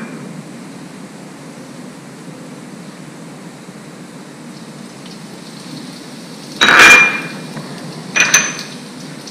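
Hot oil faintly hissing in a frying pan after a pinch of asafoetida is sprinkled in. Twice near the end, short ringing clinks of small glass bowls being knocked or set down.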